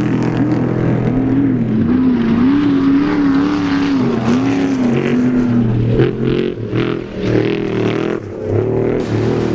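Off-road race vehicle engine revving. Its pitch rises and falls in quick, even waves about one and a half times a second, then turns uneven, with sudden surges and dips in the last few seconds.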